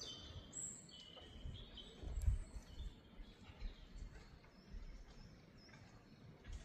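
Faint birdsong: short high chirps from small birds, repeated through the first few seconds. A low rumble, loudest about two seconds in, comes and goes beneath them.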